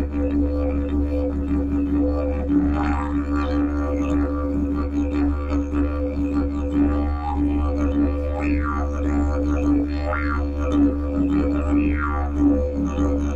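Hemp didgeridoo played as an unbroken low drone. Now and then the player's mouth shaping makes rising and falling wah-like sweeps in the upper tone.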